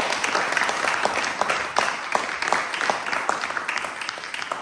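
A small group of people applauding, many hand claps together, thinning out near the end.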